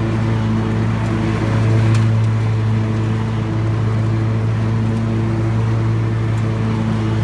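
Scag Tiger Cat zero-turn mower's engine running steadily under mowing load, heard from the operator's seat, briefly a little louder about two seconds in.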